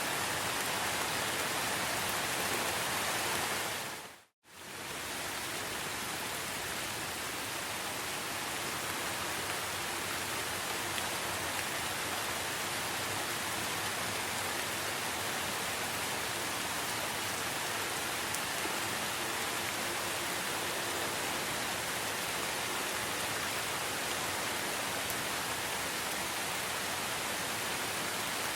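Steady rain, an even dense hiss that briefly fades to silence about four seconds in and then comes straight back.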